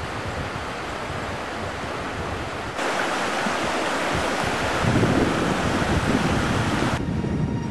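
Steady rushing outdoor noise with an uneven low rumble. It jumps louder about three seconds in and drops back abruptly near the end.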